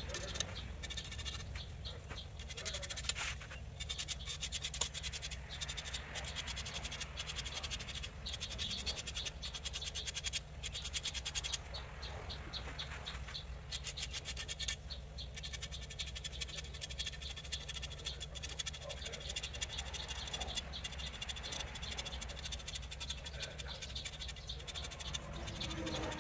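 Marker pen tip scratching along a javelin shaft in quick short strokes, coming in clusters with brief pauses, over a steady low hum.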